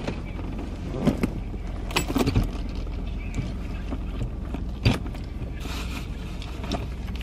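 Car idling, heard from inside the cabin as a steady low hum, with a few sharp clicks and rattles from a purse being handled.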